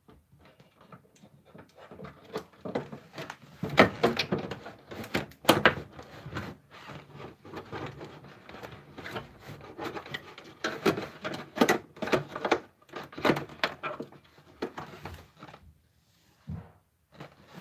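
Hands working on a flat-screen television's internal wiring and parts: an irregular run of clicks, knocks and rustles of plastic, the sharpest about four and five and a half seconds in.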